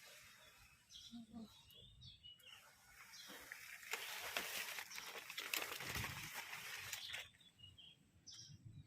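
An outdoor rustling hiss with crackles, which swells about three and a half seconds in and drops away after about seven seconds, with a few faint bird chirps.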